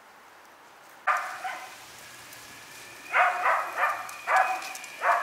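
Large dog barking, once about a second in and then in a quick run of short barks, over the steady rolling hiss of skateboard wheels on an asphalt driveway.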